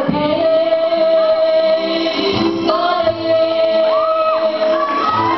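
A woman singing into a hand-held microphone through a hall's PA over instrumental backing, holding a long note and then a second long note a little under three seconds in.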